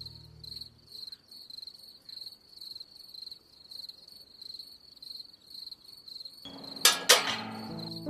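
Crickets chirping in a steady, rapid, even rhythm. Near the end two loud sharp cracks come a fraction of a second apart, and music begins over them.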